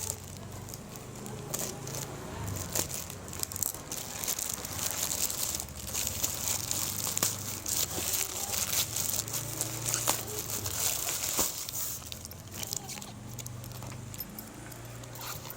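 Packaging being handled and opened: plastic or paper crinkling and rustling with many small crackles, busiest in the middle and easing off near the end.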